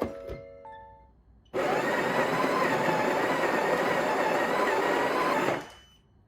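A small electric appliance motor whirring steadily for about four seconds, starting abruptly and stopping with a short run-down.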